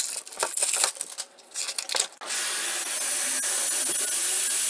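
A compressed substrate brick scraping and rubbing against a plastic storage box in short, uneven strokes, then, a little over two seconds in, a garden-hose spray nozzle starting a steady hiss of water onto the brick in the box, soaking it so it breaks up.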